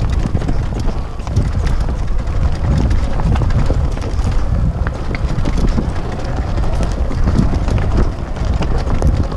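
Sur Ron X electric dirt bike ridden along dirt singletrack: wind buffeting the helmet-mounted microphone over the rumble of tyres on dirt, with frequent clicks and rattles from the bike, stones and brush.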